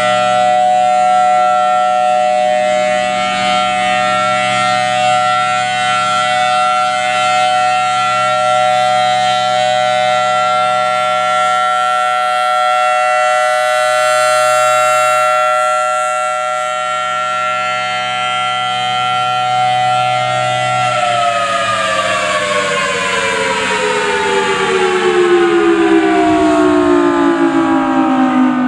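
Federal Signal Thunderbolt 1000AT outdoor warning siren sounding a loud, steady tone, its level swelling and easing as the rotating horn sweeps around. About 21 seconds in the drive cuts off and the siren winds down, its pitch falling steadily.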